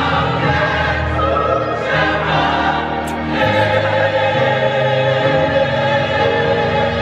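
Choir singing held chords.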